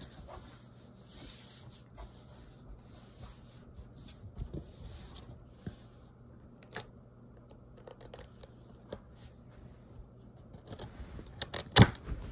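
Rustling, scraping and scattered clicks of handling close to the microphone, with a louder knock near the end.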